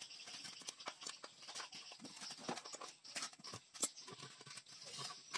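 Irregular clicks and light taps as the fuel pump assembly of a Yamaha NMAX scooter is worked loose and lifted out of its fuel tank by hand, with one sharper click about four seconds in.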